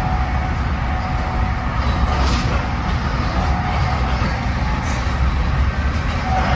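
Interior running noise of an NJ Transit Multilevel passenger coach at speed: a steady low rumble of wheels on rail with a faint steady whine.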